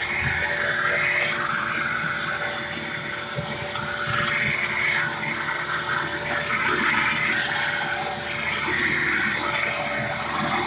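Bissell Lift-Off upright vacuum cleaner's motor running steadily with a hum and rushing air that swells and fades every few seconds. The motor has been running hot, and the owner is waiting to see whether it keeps going or cuts out.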